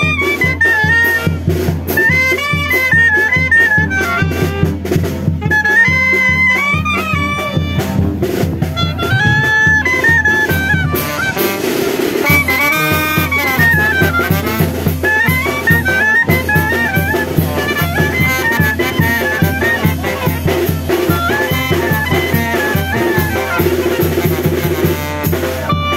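Brass band music with clarinets and drums: a wind-band tune over a steady beat.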